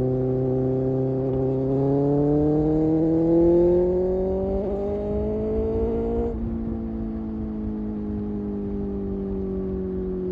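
Kawasaki Ninja ZX-6R inline-four engine pulling under throttle, its pitch climbing steadily for about four seconds, then dropping suddenly about six seconds in and winding slowly down as the bike coasts, with a low rush of wind and road noise beneath.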